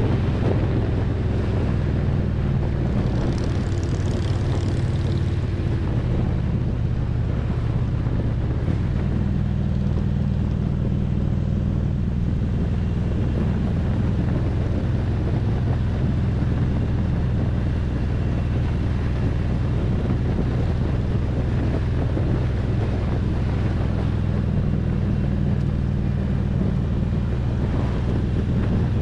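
Harley-Davidson Road Glide's V-twin engine running steadily at road speed, its low exhaust note shifting slightly in pitch a few times as the throttle changes, with wind rush on the microphone.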